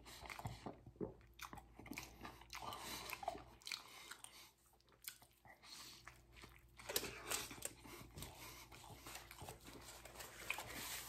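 A person biting into and chewing a burrito close to the microphone: faint, wet chewing clicks, with a quieter pause in the middle before the chewing picks up again.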